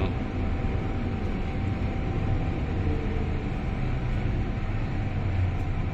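Hong Kong MTR Island Line M-Train car heard from inside while running at a steady speed: a low, even rumble of wheels on track with one thin steady whine over it.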